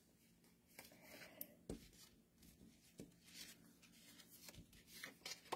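Near silence with faint rustling of cardstock pieces being handled, and a few light taps and clicks of paper and tools on the tabletop.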